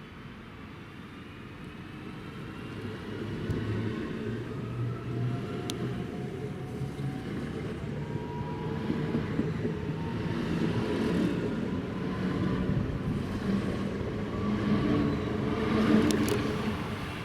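Electric regional train rolling on the rails and gathering speed, its traction motors giving a faint whine that rises slowly in pitch. A few sharp high ticks sound over the rumble, one about six seconds in and a couple more near the end.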